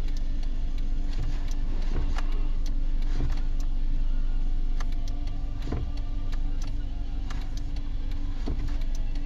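Car running at idle with a steady low hum, and scattered light clicks and knocks at irregular intervals.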